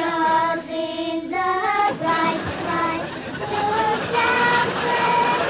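A group of children singing a Christmas carol together, holding each note for about half a second to a second.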